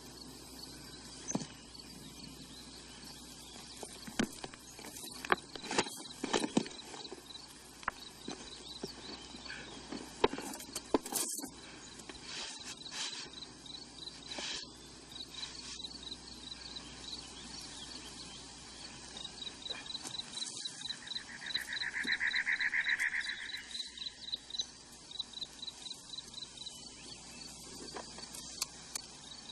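Crickets chirping in a steady, evenly pulsed rhythm. In the first half come scattered knocks and scrapes as stones and a tin box are handled, and about two-thirds of the way in a louder buzzing trill runs for a few seconds.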